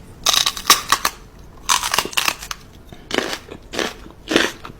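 A pet chewing and crunching on food in irregular bursts.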